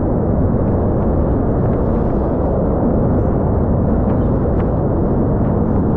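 Steady wind noise rumbling on the microphone.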